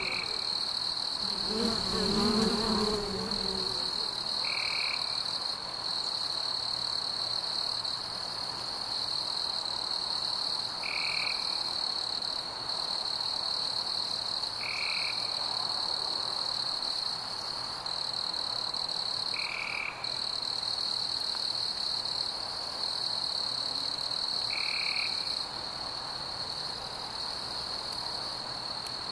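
Outdoor ambience of insects and frogs: a steady, high-pitched insect drone, with a short frog call repeating about every five seconds.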